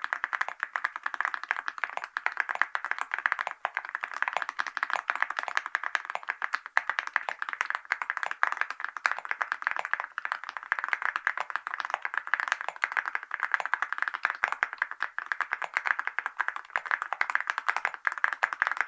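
Fast, continuous typing on a Varo V87A mechanical keyboard fitted with Awekeys gold metal keycaps and linear switches, a dense run of clicky keystrokes.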